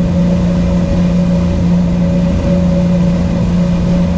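Boat engine running steadily at speed, a constant drone over a heavy low rumble.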